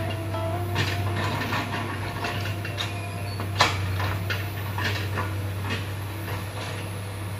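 Hydraulic excavator running with a steady low engine drone, and repeated metallic clanks and knocks as the machine works, the sharpest about three and a half seconds in.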